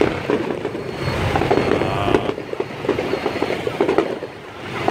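Fireworks popping and crackling in rapid, irregular bursts, over the running engines of motorbikes and scooters passing close by.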